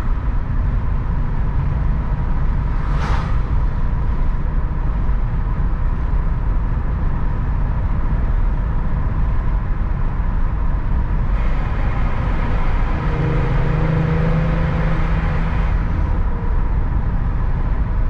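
Steady road and tyre rumble heard inside a moving car's cabin on a worn, patched forest road. A brief whoosh comes about three seconds in, and from about eleven seconds the noise turns brighter for a few seconds as the car passes under a concrete overpass.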